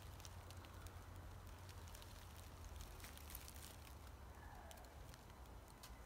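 Near silence: a faint low rumble of wind on the microphone, with scattered faint crackles of dry leaf litter.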